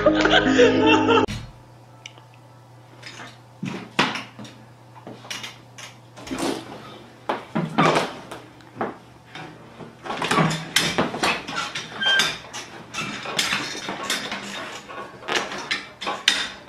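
A young tiger clawing and biting apart the padded seat of an office chair: irregular scratching, ripping and clattering knocks from the chair, growing busier about halfway through.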